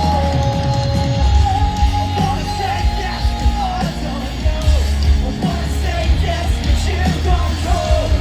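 Live rock band playing loudly with drums, bass and guitars. A singer holds one long high note for nearly four seconds, with a second voice singing a lower note under it for about the first second.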